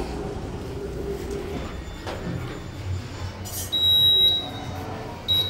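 Elevator control panel beeping: a long high electronic beep about four seconds in as the door-open button is pressed, then a short beep near the end.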